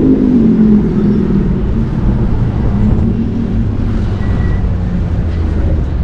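Street traffic heard from a bicycle riding among cars: car engines running close by, over a steady low rumble.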